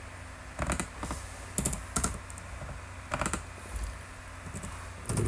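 Computer keyboard keystrokes and mouse clicks: a scattered series of single sharp clicks, some in quick pairs, over a faint steady low hum.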